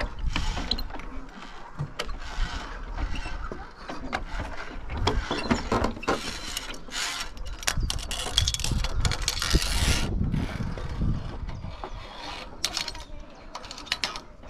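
Metal climbing-course safety gear on steel cable: carabiners and a pulley clicking and rubbing, with a denser stretch of rushing, scraping noise from about five to ten seconds in.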